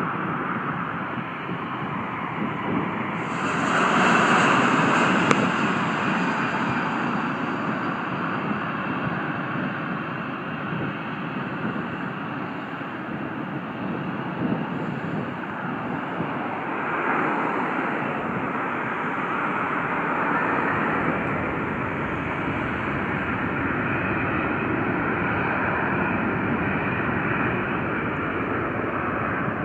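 Airliner engines running at the runway, swelling about three seconds in as power comes up, with a high hiss added, then holding a steady rushing drone.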